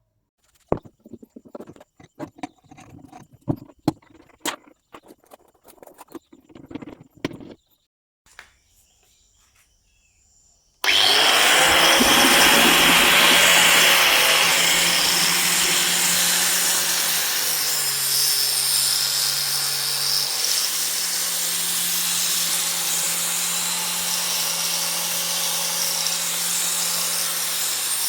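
Scattered clicks and knocks of handling, then about eleven seconds in a DeWalt DW803 angle grinder switches on abruptly and runs loud and steady, its motor pitch dipping lower for a couple of seconds midway before climbing back.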